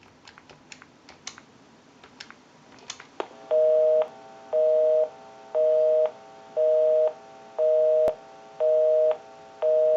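A few faint clicks as the call is placed, then a North American telephone busy signal: a two-tone beep repeating about once a second, half a second on and half off, meaning the dialed line is engaged.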